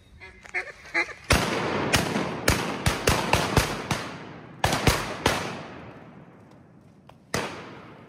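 A rapid volley of shotgun blasts from several hunters firing at ducks overhead: about a dozen shots in four seconds, each echoing away through the woods, then one last shot near the end. A few short quacks come just before the shooting starts.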